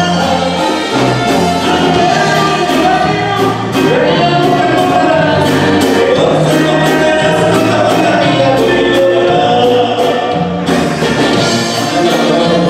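A live Mexican regional dance band with saxophone plays: a lead singer over horns, a bouncing bass line and a steady drum beat.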